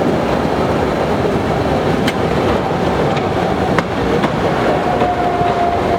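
Postojna Cave's electric tourist train running on its rails: a steady rumble with a few sharp clicks, and a faint thin high tone near the end.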